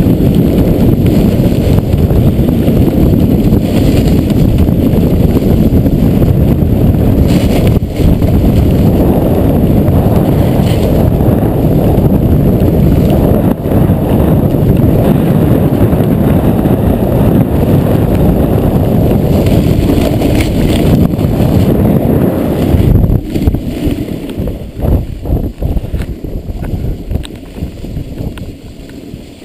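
Rushing wind buffeting a GoPro's microphone while riding fast down a ski run: a loud, dense low rumble that eases and turns patchy over the last few seconds.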